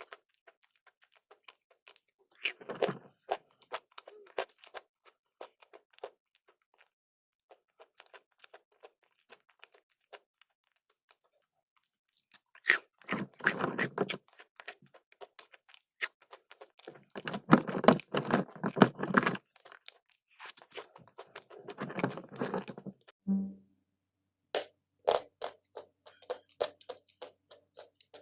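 Crunching and chewing as pieces of chalk and clay are bitten. The sound comes in about five separate bursts with quiet pauses between them.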